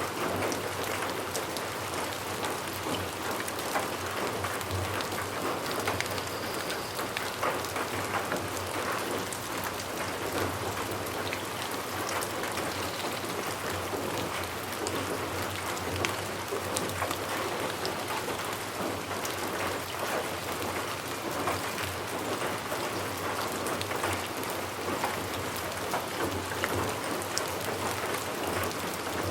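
Steady rain falling, a constant wash of noise with many individual drops ticking on a surface.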